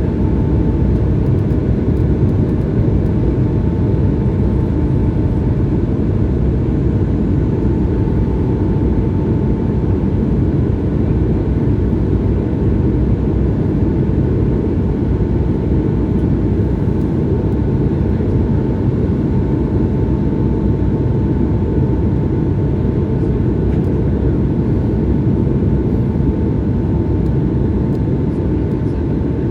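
Airbus A220-100 climbing after takeoff, heard from inside the cabin: a steady, loud roar from its Pratt & Whitney PW1500G geared turbofan engines, with a thin steady tone running through it.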